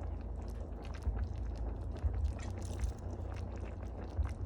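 Apple cider vinegar poured from a bottle into a pot of cooking collard greens, with small clicks and knocks of handling and a short splashing hiss about two seconds in.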